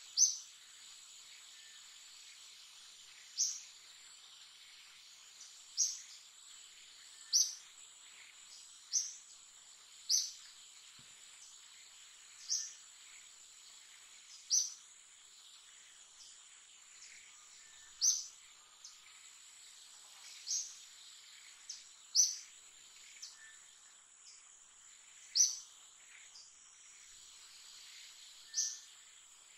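Steady high insect drone in a forest, with about fifteen short, sharp bird chirps over it, one every one to three seconds.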